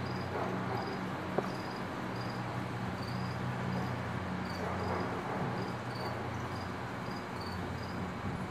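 Insects chirping in short high pulses, about two a second, over a steady low hum, with a single sharp click about a second and a half in.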